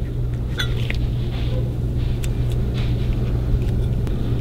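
A steady low hum runs throughout, with a few faint light metal clicks as an open-end wrench works a bolt on a motorcycle fork leg.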